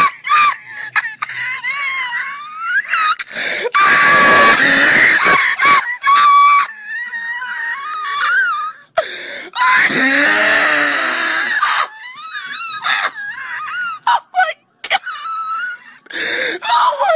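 A man laughing hysterically in high-pitched shrieks and wheezing gasps, breaking off and starting again several times.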